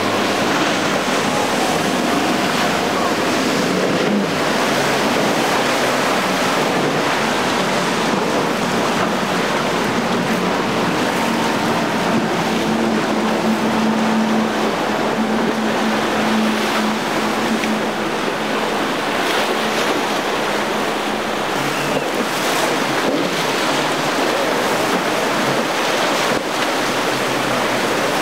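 Steady rush of surf and wind on the microphone, with the drone of outboard engines as center-console boats run past at speed through choppy water. One engine hum stands out for several seconds around the middle.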